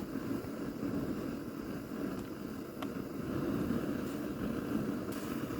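Lidded pot of water with crabs in it, heating back up to a rapid boil on the burner: a steady low rushing roar.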